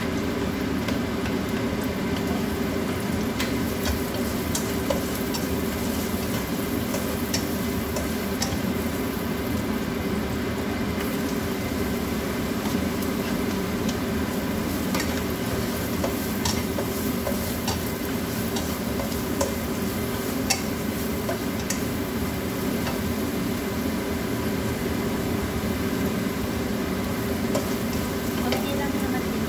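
Food sizzling in oil in a non-stick frying pan, steady throughout, while a slotted plastic spatula stirs it, with many small clicks and taps of the spatula against the pan and a plate.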